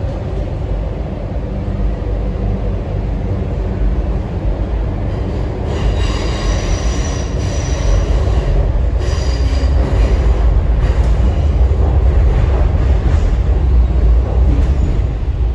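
MTR Kwun Tong Line C-train heard from inside the passenger car as it runs: a steady low rumble. Twice, about six and about nine seconds in, a high-pitched wheel squeal rings out briefly.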